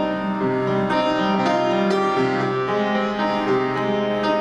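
Upright piano played slowly: held chords with a changing bass note, a new chord struck about every second.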